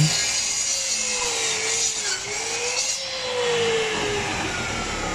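Makute 1800 W belt-driven miter saw running with its 10-inch blade cutting through wood, to finish a cut the first pass left incomplete. Its whine dips and rises as the blade takes the load, and sinks slowly near the end.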